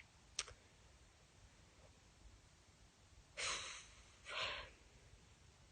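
A short click, then two audible breaths close to the microphone, each about half a second long and a second apart, like a sigh out and a breath in.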